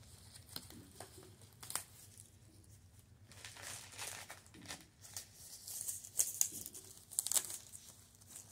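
Thin disposable plastic gloves and a plastic table sheet crinkling and rustling as hands handle a twisted t-shirt and wrap rubber bands around it, with scattered small clicks.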